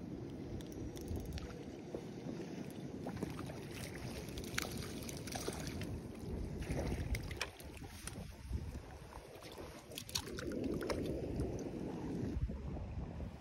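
Wind rumbling on the microphone, with scattered small clicks and knocks.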